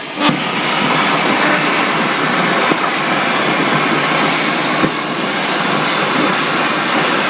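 100 A plasma cutter with a Sensai AB80 torch cutting through metal plate: the arc and compressed air give a loud, steady hiss that starts sharply about a third of a second in.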